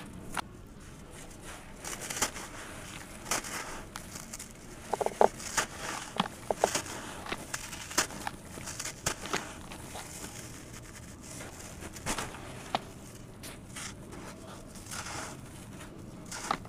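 Dry, dusty sand-cement chunks crumbling in gloved hands in a plastic basin: a gritty rustle of falling grains with scattered sharp crackles and small cracks as lumps break apart.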